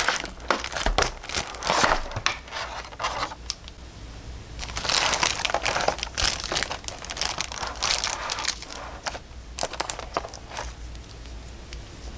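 Thin clear plastic bag crinkling and crackling as it is snipped with scissors and then pulled open and off a figure. The crinkling comes in bursts, loudest in the middle, and dies down to a few faint crackles near the end.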